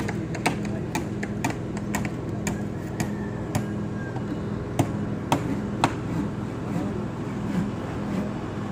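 Construction machinery engine running steadily, with irregular sharp knocks and taps over it, a few louder ones about halfway through.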